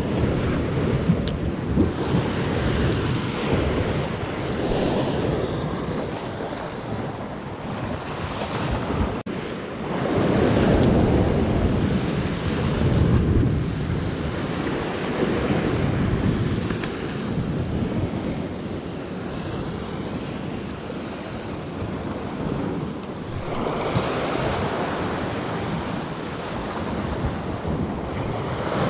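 Sea waves washing and breaking on rocks, swelling and easing every few seconds, with wind buffeting the microphone.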